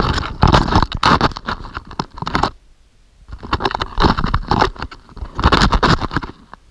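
Loud scratching and scraping from the camera being handled and bedded down into loose ice chips, in two long bouts with a short quiet gap between.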